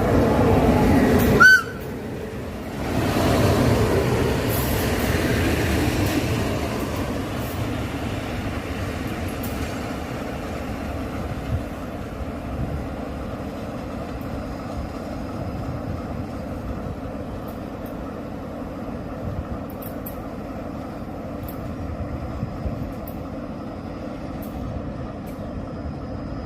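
Regional passenger train with a single carriage rumbling along the track and moving off, its sound swelling about three seconds in and then fading slowly. A brief high tone cuts in about a second and a half in.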